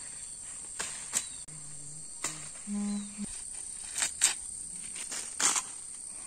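Insects droning with a steady high-pitched buzz, over which leaves rustle and snap in about six short bursts as they are stripped from a branch by hand; a brief low hum sounds about halfway through.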